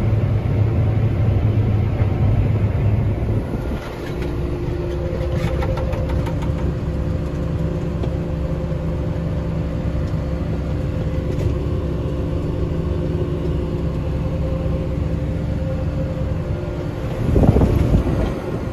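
Combine harvester and farm machinery engines running: a strong low engine drone at first, then a steadier engine hum with a couple of held tones. The sound swells louder briefly near the end.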